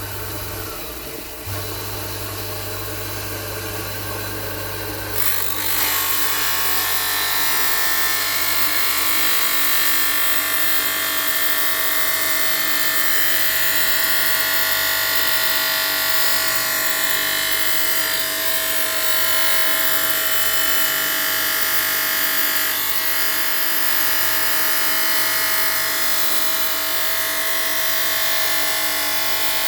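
Small electric rotary tool working natural stone, running steadily. About five seconds in it gets louder and harsher and stays that way.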